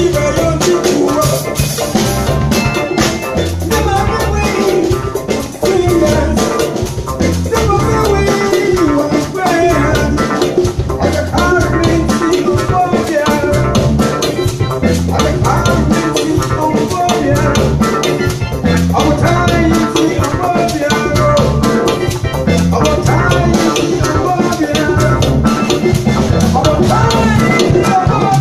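Live Afrobeat-highlife band playing an instrumental passage: a drum kit and percussion keep a steady groove under a wavering lead melody.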